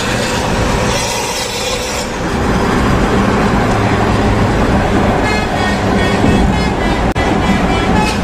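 Steady road noise from a vehicle moving at highway speed: tyre and wind rush with a low engine rumble, getting a little louder about two seconds in.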